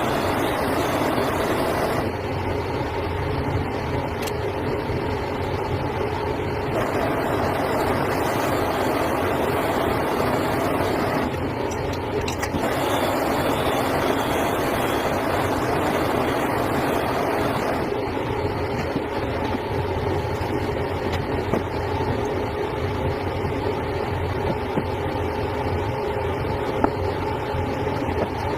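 Steady mechanical running noise of workshop machinery, its tone changing abruptly several times.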